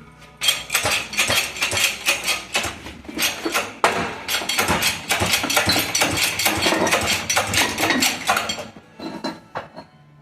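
Steel gearbox parts and tools clattering and clinking against one another in a rapid, continuous run of metallic clicks and knocks, thinning to a few scattered clicks near the end.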